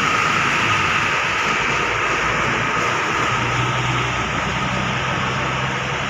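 Diesel engine of a Hino intercity bus running as the bus pulls slowly past and away, its low drone under a steady hiss of tyres on rain-soaked pavement.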